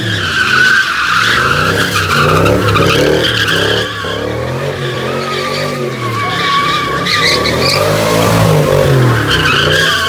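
A car doing donuts: its tyres squeal without a break while the engine revs climb and drop back again and again.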